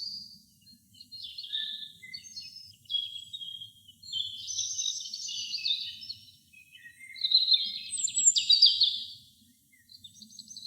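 Robin singing: about five varied, high-pitched warbling phrases with short pauses between them.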